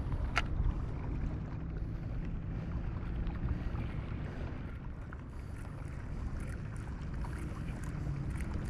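Wind rumbling on an action camera's microphone over water sounds around a stand-up paddleboard at sea, with one sharp click about half a second in.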